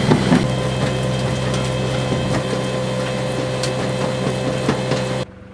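An engine running steadily, with irregular mechanical clicking and rattling over it. Near the end the sound drops abruptly to a quieter, duller hum.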